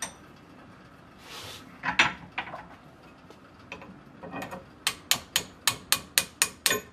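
Steel hammer striking a steel drift held in a Club Car golf-cart A-frame's bushing eye, driving out the worn bushing. A couple of single knocks come first, then a quick, even run of about nine ringing metal-on-metal blows, roughly five a second, in the last two seconds.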